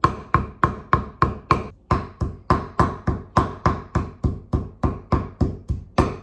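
A cleaver chopping steadily on a cutting board, about three and a half strokes a second, mincing cooked prahok fish.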